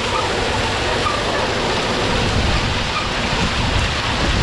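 Wind buffeting the microphone: a steady, loud rushing noise with an uneven low flutter.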